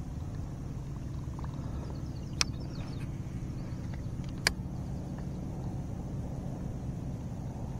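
A steady low motor hum, with two sharp clicks about two seconds apart.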